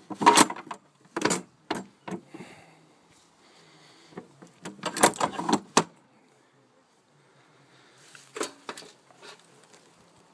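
Clattering knocks and rattles from handling on a boat's plastic swim platform and stern: a cluster of sharp knocks at the start, another about five seconds in, and a fainter one near the end.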